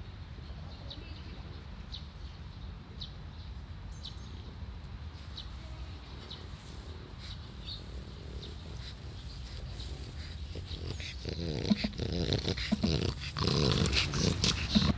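Elderly French bulldog making short, irregular grunting and breathing sounds close to the microphone during the last few seconds. Before that there is only a steady low rumble with a few faint ticks.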